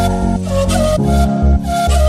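Background music: held melodic notes over a pulsing bass and a regular beat.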